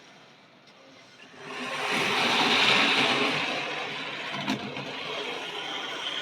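Model railway train running along the track, its motor and wheels growing louder from about a second in as it draws near, then running steadily, with a single click about four and a half seconds in.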